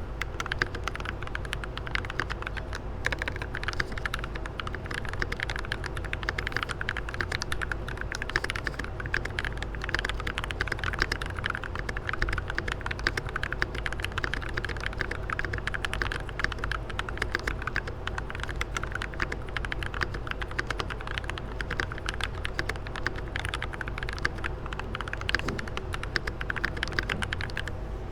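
Continuous fast typing on a custom RK84 mechanical keyboard with lubed Feker Holy Panda tactile switches, lubed stabilizers, a foam-modded case and PBT keycaps: a dense, unbroken stream of keystrokes.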